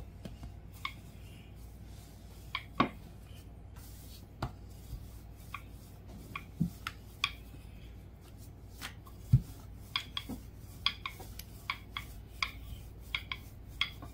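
Irregular light clicks and knocks of a rolling pin working dough on a board, with a few sharper knocks among them and the knocks coming more often in the second half.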